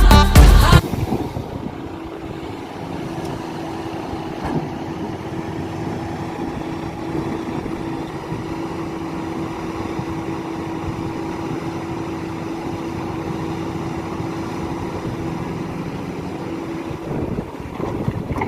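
Heavy diesel earthmoving machinery, an excavator loading tipper trucks, running steadily with a held hum; background music cuts off about a second in.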